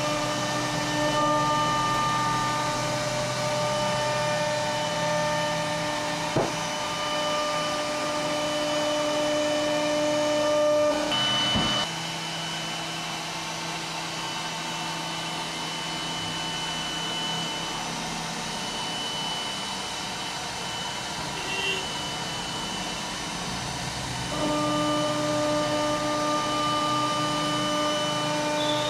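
CNC router spindle running while carving a wooden panel: a steady whine of several tones over a hiss. About twelve seconds in it drops quieter and some of the tones fade, then they come back in near the end.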